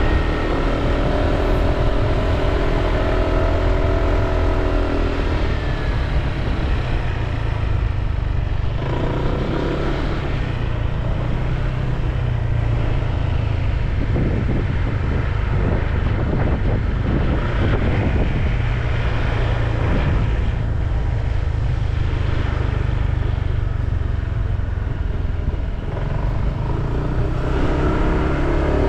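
Riding a Honda PCX 150 scooter: a steady, deep wind rumble on the microphone over road and engine noise. A pitched engine tone stands out for a few seconds near the start, briefly about ten seconds in, and again near the end.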